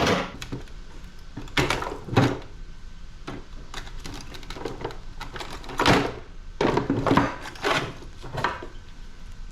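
Irregular knocks and clatter of scrap parts being handled and pulled off while an air conditioning unit is taken apart, with a sharp knock at the start and others scattered through.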